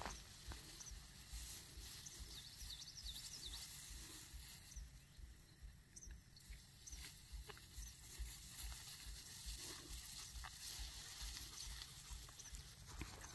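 Faint footsteps and rustling through tall meadow grass, over a low rumble, with a few faint high chirps in the first few seconds and near the middle.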